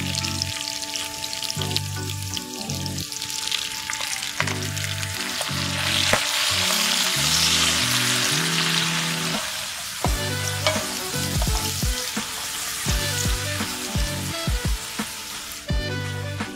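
Spinach sizzling in melted butter in a stainless-steel pan as it is stirred with wooden spoons. The sizzle is loudest in the middle and dies down over the last few seconds, over background music with a low bass line and plucked notes.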